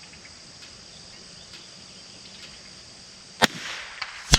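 Steady high chirring of crickets, then near the end two sharp cracks of .22LR rifle shots just under a second apart, each with a brief echo.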